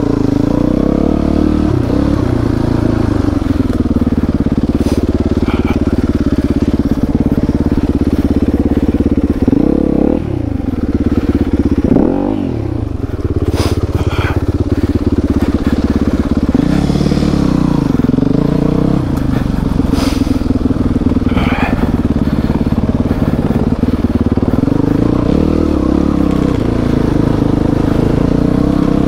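Enduro motorcycle engine running while ridden, the revs rising and falling repeatedly, with a few sharp knocks about halfway through.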